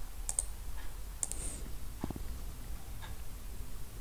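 Computer mouse clicking a few times, about once a second, over a faint low hum.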